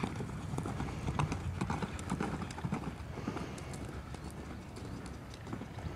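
Hoofbeats of a buckskin gelding loping under a rider on loose arena dirt: a quick, uneven run of dull thuds.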